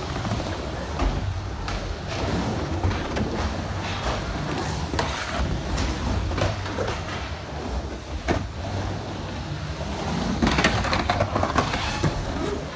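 Skateboard wheels rolling with a steady low rumble, broken by a few sharp clacks of the board and a louder, rougher stretch of board noise about ten and a half seconds in.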